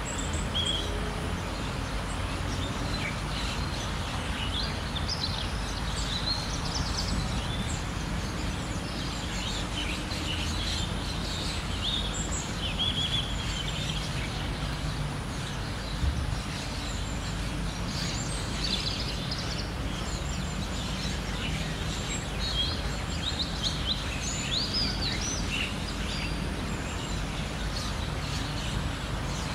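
Birds chirping and calling in quick, high, scattered notes over a steady low rumble of outdoor background noise, with one brief thump partway through.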